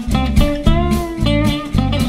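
Background music: a guitar-led instrumental over a steady, pulsing bass beat.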